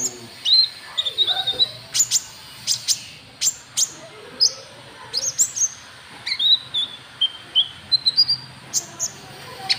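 Konin trotol bird calling: an irregular run of short high chirps and sharp clicking notes, mixed with brief whistled notes that drop slightly in pitch.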